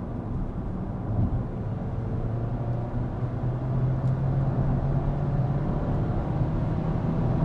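Small turbocharged four-cylinder car with a quiet exhaust accelerating hard up a freeway ramp from about 3,000 to 5,000 RPM, heard from inside the cabin; the engine note and road noise grow slowly louder.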